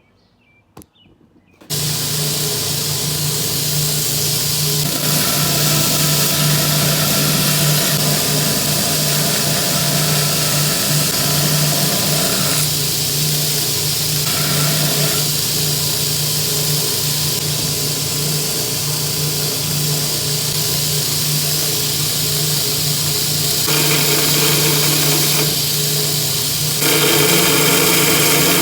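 An electric power tool starts up about two seconds in and runs steadily with a constant hum, its sound shifting and growing a little louder near the end.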